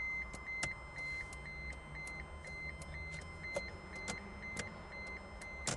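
A Rover 200's dashboard warning alarm sounding with the key in the ignition: one high-pitched tone, steady but broken by short regular gaps, with scattered sharp clicks alongside. The cause of the alarm is unknown to the driver, who calls it really annoying.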